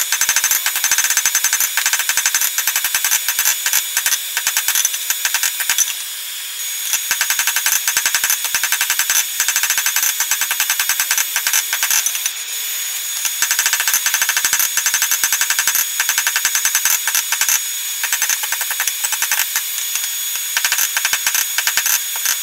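Hand hammer striking a red-hot steel bar on an anvil in quick, repeated blows, each strike ringing off the anvil. The blows add hammer-mark texture to the bar's surface. Brief pauses come about six and twelve seconds in.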